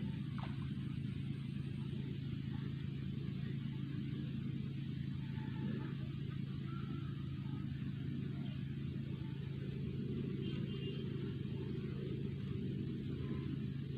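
A motor running steadily, giving a constant low hum.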